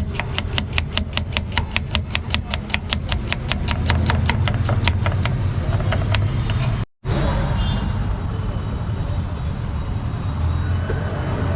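Rapid, even tapping of a utensil on a hard surface, about five strikes a second, over steady street traffic noise. About seven seconds in the tapping stops at a cut, and only the traffic noise goes on.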